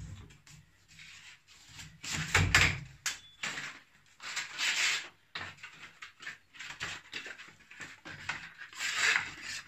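Abrasive belt being changed on a stopped belt sander: irregular scraping and rustling as the stiff sanding belt slides off and onto the wheels and rubs the metal frame, with a thump about two and a half seconds in.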